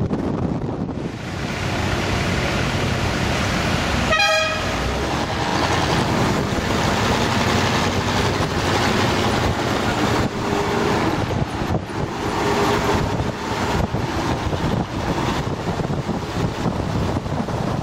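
A car horn toots once, briefly, about four seconds in, over steady wind and road noise from riding in traffic in a classic car.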